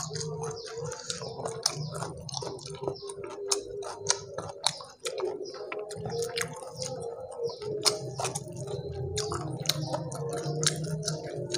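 Crispy fried chicken being torn apart with the fingers and chewed close to the microphone: a dense, irregular run of sharp crackles and small wet clicks. A steady low hum runs underneath.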